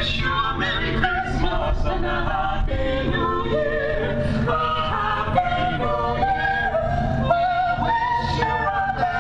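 Carolers singing a Christmas carol together in several voices, with held notes changing every second or so. A steady low rumble runs underneath.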